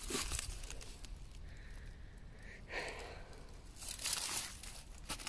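Faint footsteps of a person walking, heard as a few scattered scuffing steps, with the loudest ones around three and four seconds in.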